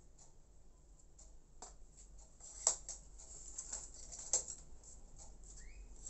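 Handling noises of a spotted dove being put back into a wire bird cage: soft taps, clicks and wing flutters, with two sharper knocks about two and a half and four and a half seconds in and a short rising squeak near the end.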